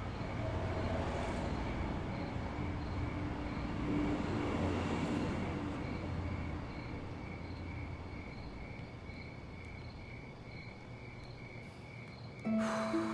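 Crickets chirping in a steady pulse over a low rumble that swells and fades. Music with plucked, harp-like notes comes in near the end.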